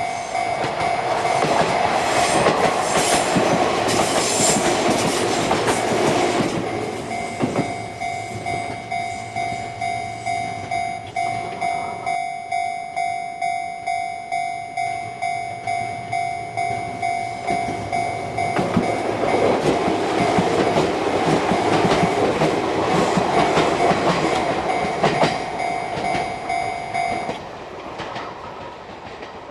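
Electric trains passing a level crossing while its warning bell rings in a steady rhythm. Train noise fills the first several seconds and swells again past the middle. The crossing bell cuts off a couple of seconds before the end.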